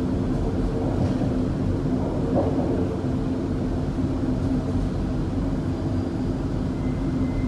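Alstom-built Dubai Metro train running, heard from inside the car: a steady low rumble with a constant hum. A faint high whine comes in near the end.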